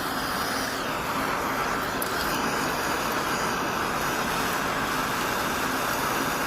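Soldering torch flame hissing steadily while heating a copper pipe fitting.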